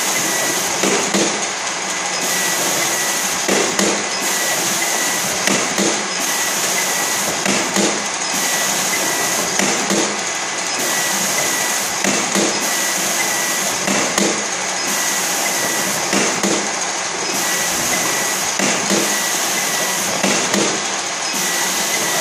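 A conveyor checkweigher line and its label printer-applicator running: steady machine hum and hiss, with a knock every second or two as the line handles and labels the passing boxes.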